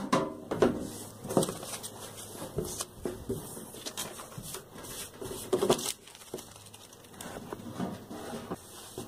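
Paper cut-outs being handled and set down on a wooden tabletop: irregular rustles and light taps.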